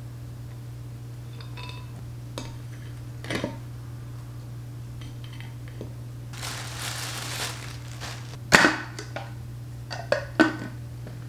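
A new Koselig blender's glass jug, plastic lid and chopper cup being handled and fitted together: scattered knocks and clinks, with the sharpest knock a little past the middle and two more near the end. A rustle of packaging lasts about a second midway, over a steady low hum.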